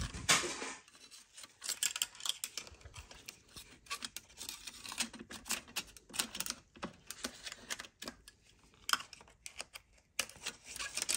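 Irregular light clicks and clinks of ZF 8HP automatic transmission internals (clutch plates, drums) being handled and shifted by hand, with a heavier knock at the very start.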